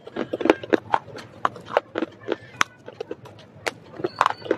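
Close-miked chewing of dry baked clay pot pieces: a rapid, irregular run of sharp crunches and crackles, several a second.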